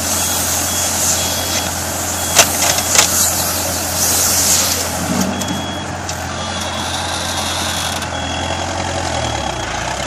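BWR2-150 bale wrapper machinery running with a steady low engine hum and a repeating high beep, and sharp clacks about two and a half and three seconds in.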